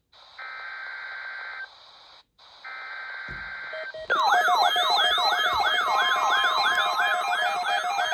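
NOAA Weather Radio SAME digital alert header bursts: two harsh buzzing data screeches of about a second each, with a short gap between. About four seconds in, a loud electronic alert alarm starts, warbling in quick repeating pitch sweeps over a steady tone, the alert that the test tones set off.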